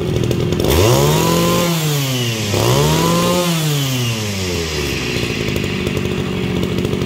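Kawasaki TG25 brush cutter's two-stroke engine revved up twice in quick succession, its pitch climbing and falling back each time, then settling to idle for the last couple of seconds.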